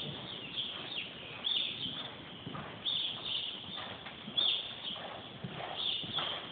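Horse cantering on soft sand arena footing, its hoofbeats coming as muffled, irregular thuds. Short high chirps recur over them.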